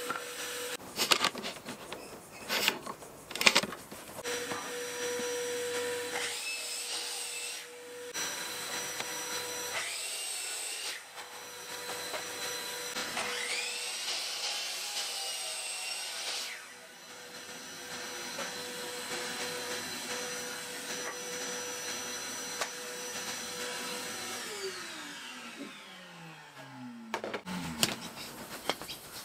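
Sliding compound mitre saw cutting wooden slats, its motor spinning up with a rising whine for each cut, over the steady whine of a vacuum-type dust extractor. A few sharp wood knocks come early, and near the end a motor winds down with a long falling whine.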